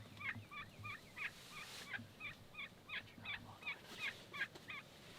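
Wild turkey hen yelping: a long, even run of short two-note calls, about three to four a second.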